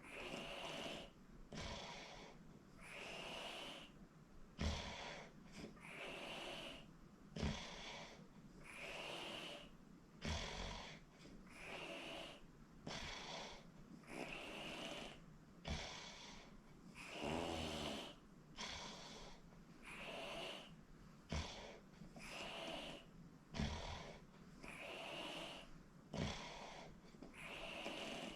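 A person snoring in their sleep, one rasping breath after another about every one and a half to two seconds, with a few soft low knocks and one longer, pitched snore about two-thirds of the way through.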